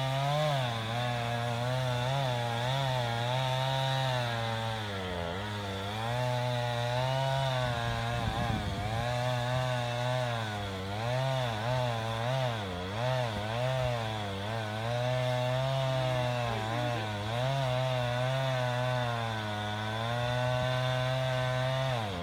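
Chainsaw cutting through a pine trunk, the engine note repeatedly dipping and rising as it bogs under load and recovers.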